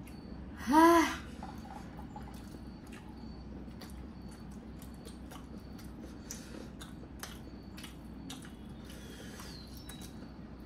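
Eating sounds from people eating momos: scattered small clicks and smacks over a steady low hum. About a second in there is one short, loud voiced exclamation whose pitch rises and then falls.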